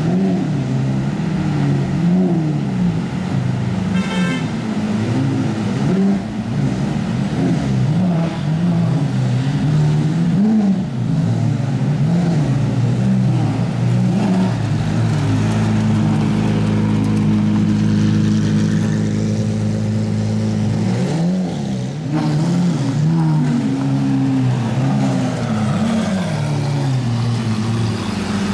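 Lamborghini Aventador SVJ's V12 engine revved repeatedly in quick blips, its note climbing and falling again and again. Past the middle it is held at a steady pitch for about five seconds, then the blips start again.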